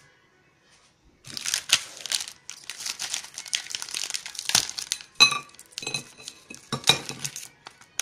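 Foil-lined plastic candy wrapper crinkling as a brittle sunflower-seed kozinak bar is pulled out and broken into pieces. Two sharp clinks with a short ring, about five and seven seconds in, as pieces land on the ceramic plate.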